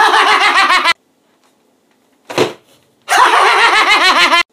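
A man laughing loudly and hysterically in two long bursts of rapid 'ha-ha-ha' pulses, with a short sharp pop a little after two seconds between them.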